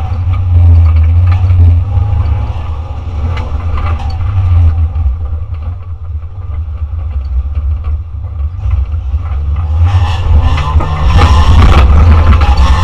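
Race car's engine and drivetrain heard from inside a stripped cabin under hard driving, with a heavy low rumble. The engine note eases off through the middle, then rises in pitch and gets loud again over the last few seconds as the car accelerates.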